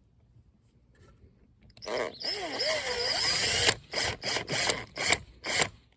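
Power drill driving a self-tapping screw: after a quiet start, one run of about two seconds with the motor pitch wavering under load, then about six short trigger bursts as the screw is seated.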